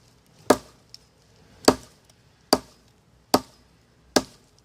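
Hatchet chopping into a log of dry wood: five sharp, even strikes, about one every 0.8 seconds.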